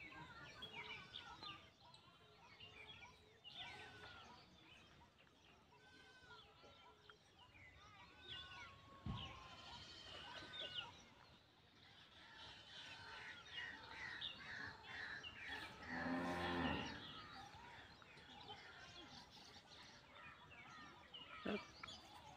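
Faint outdoor ambience with birds chirping on and off. About sixteen seconds in comes a single long, low animal call lasting about a second.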